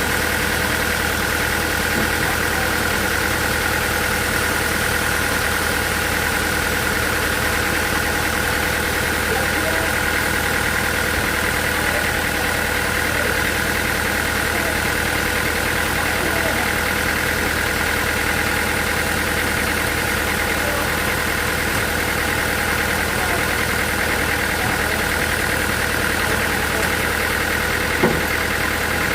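Sawmill machinery's motor running steadily, with a constant low hum and a steady higher whine; one short knock near the end.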